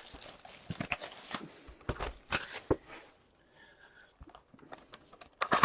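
Hands handling trading card packs and cards: scattered crinkles, rustles and light taps of foil wrappers and card stock, dying down to a quieter stretch about three seconds in.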